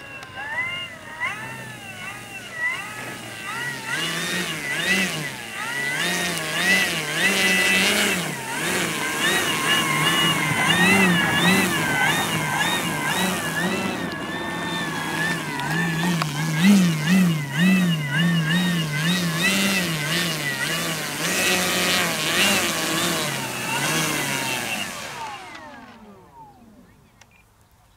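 Electric motor and propeller of a large 6S RC T-28 Trojan whining as the plane taxis, the pitch rising and falling with the throttle. Near the end the motor is cut and the propeller spins down in a falling whine to a stop.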